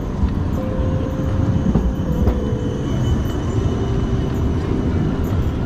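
Steady low rumble of a rail vehicle running past on the street, with a faint held whine that steps down slightly in pitch about halfway through.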